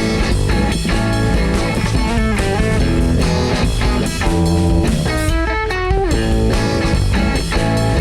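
A band playing a funky instrumental passage, with electric guitar to the fore over a steady low end. A few guitar notes are bent about five to six seconds in.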